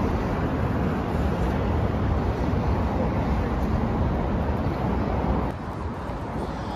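Busy street noise: a steady rumble of road traffic that drops off abruptly about five and a half seconds in.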